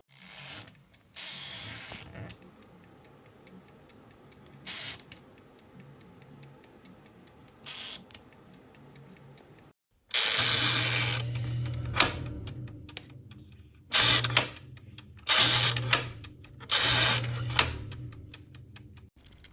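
Spring-wound countdown timer switch ticking rapidly and faintly as its clockwork runs down. It is failing, stopping short of its full countdown. In the second half come several loud bursts of rushing noise, each with a low hum.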